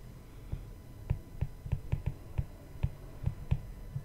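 Stylus tapping and scratching on a tablet screen during handwriting, a run of short irregular taps, about three a second.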